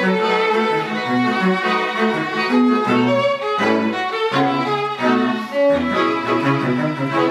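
String quartet of violins and cello playing a rhythmic passage of short bowed notes that change several times a second over a low cello line.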